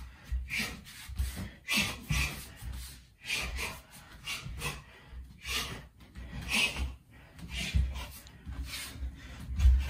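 Muay Thai shadowboxing: sharp hissing exhalations with each punch and teep, about one every half second to second, with bare feet thudding and scuffing on a wooden floor. A heavier thud comes near the end.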